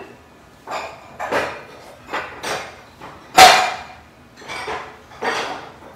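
Glass prep bowls and kitchen utensils clattering and knocking as they are handled and set down on a wooden tray. It comes as a run of separate short knocks, the loudest a little past halfway.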